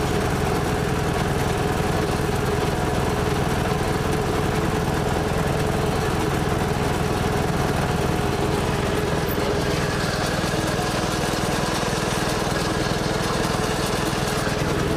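Engine of a moving vehicle running at a steady speed, a constant drone with even engine notes.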